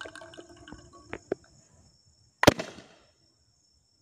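A single sharp bang about two and a half seconds in, with a short trailing rush, as a drop of alcohol vaporised inside a sealed plastic bottle is ignited by a gas lighter's spark. A few faint clicks come before it.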